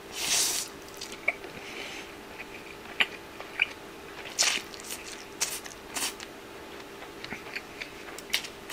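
A person slurping up forkfuls of spaghetti and chewing wetly: a short slurp just after the start and another about four and a half seconds in, with small clicks and smacks of chewing in between.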